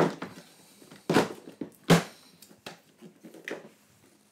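A series of knocks and clatters from small objects being picked up, moved and set down on a tabletop. The loudest comes about two seconds in.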